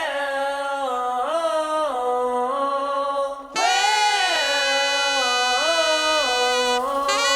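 Music: a melody of long held notes that slide between pitches, breaking off briefly about three and a half seconds in before starting again.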